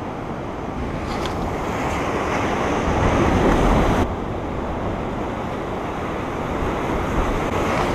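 Ocean surf breaking and washing against a rock wall, with wind on the microphone. The wash swells about three seconds in and drops off sharply about four seconds in.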